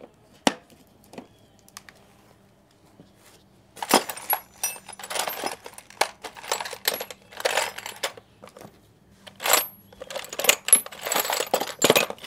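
Loose metal sockets clinking and clattering against each other as they are rummaged through in search of the right size. A few single clicks come first, then steady clattering from about four seconds in.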